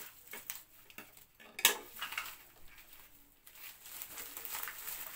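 Plastic courier mailer being handled and torn open by hand: light crinkling and rustling with a few small clicks, one sharp click about a second and a half in, and steadier rustling over the last second and a half.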